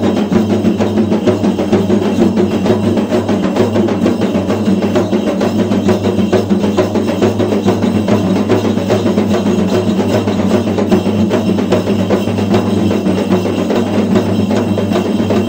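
Music with dense, rapid drumming, running steadily and loudly.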